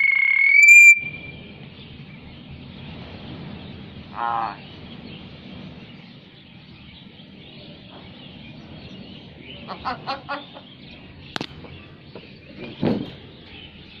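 Hill myna calling: a loud, slightly rising whistle in the first second, then a few short, harsh calls, one about 4 s in, a quick cluster near 10 s and another near 13 s.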